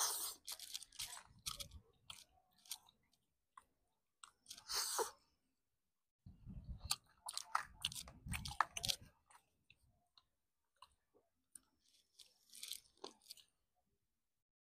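A person chewing crispy fried food with their mouth close to the microphone, a wet crunching that comes in several bouts with short silent pauses between.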